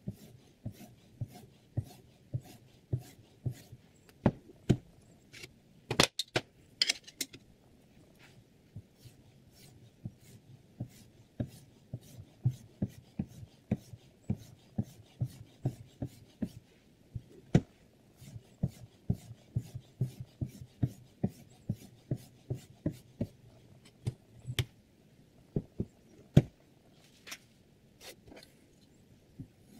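Sharpening stone on the guide rod of a Hapstone R2 sharpener stroked back and forth across a chef knife's edge: short rasping strokes, about two a second, with a few brief pauses. One loud knock comes near the end.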